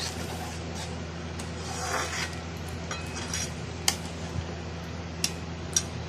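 Metal spatula stirring and scraping through paneer gravy in a metal kadai, with three sharp clinks of metal on the pan about four, five and a half, and six seconds in. A steady low hum runs underneath.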